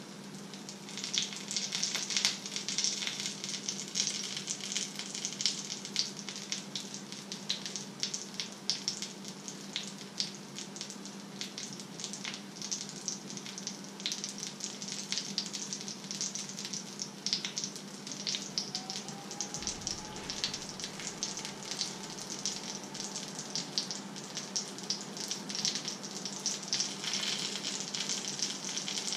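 Fish fingers frying with egg in a pan, sizzling with dense small pops that grow louder about a second in. A steady low hum runs underneath.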